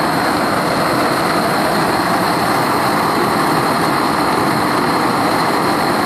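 Bernz-O-Matic JT539T swirl-flame propane torch burning steadily into a small melting furnace, a loud, even rushing hiss with no pauses or changes.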